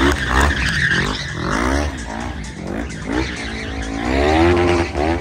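Sport quad's engine revving up and down in quick blips as it drifts in tight circles, its tyres skidding on asphalt; about three seconds in it holds a longer, higher rev, the loudest part.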